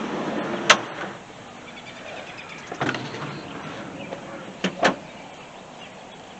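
A door being handled as someone goes out: a few sharp clicks and knocks from the latch and handle, seconds apart, with a short rustle at the start.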